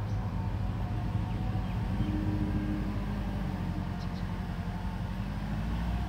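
Hino J07C six-cylinder diesel engine of a dump truck running steadily at low revs as the truck rolls slowly along, rising a little in pitch near the end.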